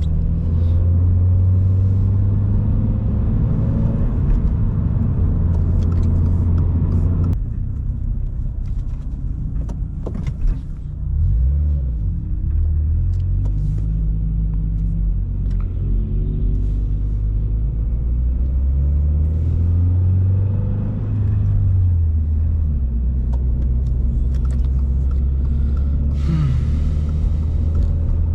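A 2023 Subaru BRZ's 2.4-litre flat-four running through an aftermarket catback exhaust, with a low steady drone while driving. The engine note drops sharply about seven seconds in, and the revs swing up and down again around ten to twelve seconds and about twenty seconds in as gears are changed.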